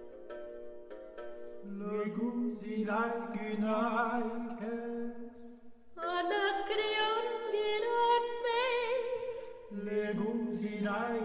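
Reconstructed ancient Greek music: a few plucked string notes give way to two sustained melodic lines with a wavering vibrato, a low one and a higher one. The lines break off briefly about six seconds in, then resume.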